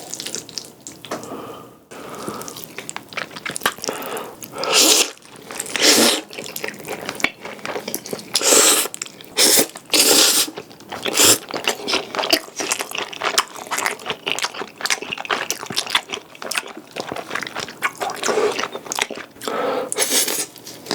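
Close-miked eating: wet chewing and mouth sounds, with irregular louder bursts every second or two.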